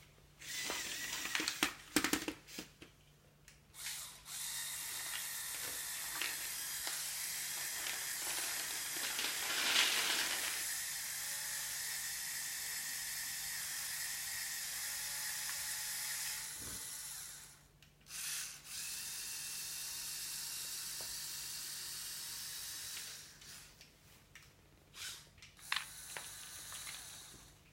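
Small electric motor and plastic gearing of a Lego Technic excavator running, once for about twelve seconds and again for about five, with clicks and rattles of plastic parts before, between and after the runs.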